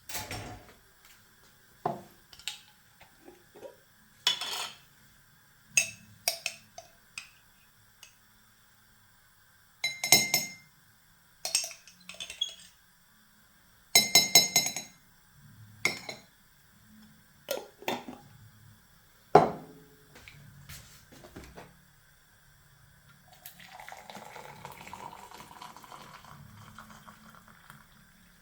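Dishes and cutlery being handled: a string of separate clinks and knocks, some ringing briefly, then a few seconds of steady rushing noise near the end.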